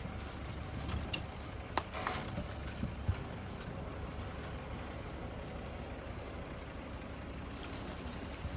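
Steady low wind rumble on the microphone, with a few short sharp crackles in the first three seconds.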